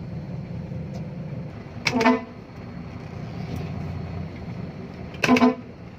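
A vehicle horn sounds twice in short toots about three seconds apart, over the steady low hum of an engine running.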